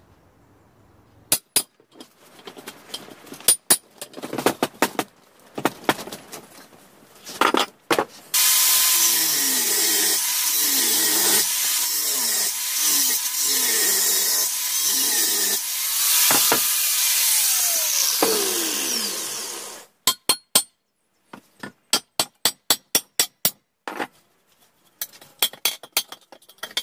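Scattered metal clanks and knocks as the frame of an old exercise machine is handled. After about eight seconds an angle grinder cuts through the frame's metal tubing for about twelve seconds, its pitch sagging and recovering several times as the disc bites, then stops suddenly. A quick run of sharp knocks follows.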